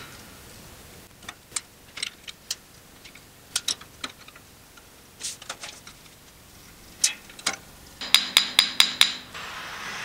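Screwdriver clicking and scraping in the screws of a Zoeller sump pump's switch-housing lid, with scattered sharp clicks. Near the end comes a quick run of about six ringing taps in one second.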